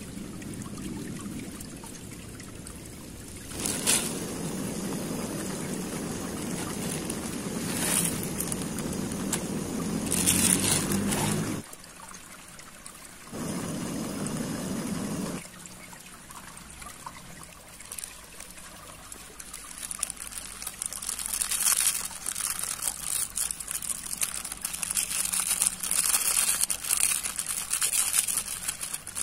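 Water bubbling in an aluminium pan over a camp stove, breaking off in a cut about twelve seconds in. In the second half it is quieter, with crackly rustling and scraping as instant noodles are stirred with a metal spoon and seasoning is added.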